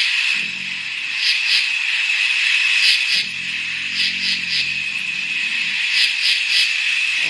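Designed Sauroposeidon dinosaur call: two deep, low rumbling calls, a short one about half a second in and a longer one from about three seconds, set over a steady high buzz with clusters of short chirps repeating about every second.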